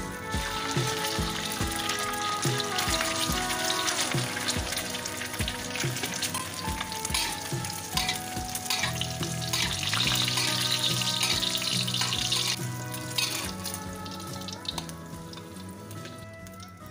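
An egg frying in hot rendered pork fat in a wok, sizzling, loudest just past the middle, while a metal spatula works it in the pan. Background music plays under it.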